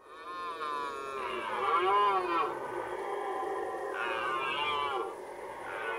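Red deer stags roaring in the rut: long, wavering calls that rise and fall in pitch and overlap one another, the loudest about two seconds in.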